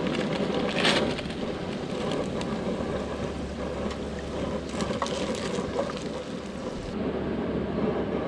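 Hot peanut oil sizzling and bubbling in a deep-fry pot as fried tater tots are lifted out with a wire skimmer, over a steady low rumble. A sharp click about a second in and a fainter one about five seconds in.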